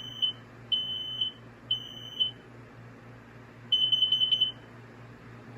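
Kidde wireless smoke alarm sounding its test alarm: three half-second high-pitched beeps about a second apart, then, after a pause, a quick run of short beeps before it stops.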